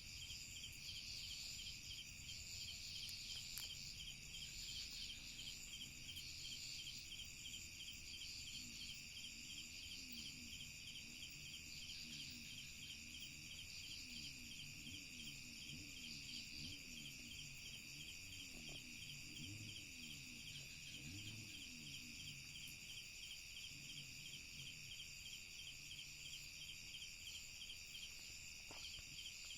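Night-time chorus of crickets and other insects, a steady high trilling that pulses rapidly. Underneath it, from about a quarter of the way in until past the middle, a low sound rises and falls over and over.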